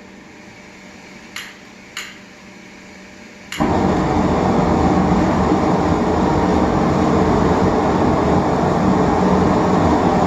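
Two sharp clicks over a faint hiss of air, then about three and a half seconds in a blown propane forge burner lights all at once and runs with a loud, steady rushing noise.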